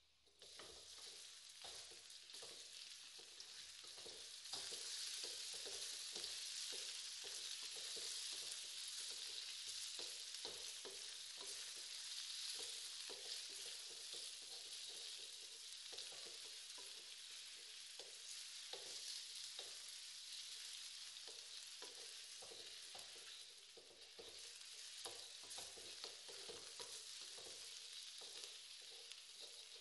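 Mustard greens stir-fried in hot oil in a metal wok: a steady sizzle that starts suddenly as the greens go in and grows louder a few seconds later. A wooden spatula scrapes and knocks against the wok in an uneven rhythm.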